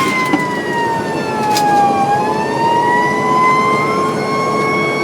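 Fire truck siren wailing: its pitch slides down over the first two seconds, then climbs slowly back up, over a steady lower tone.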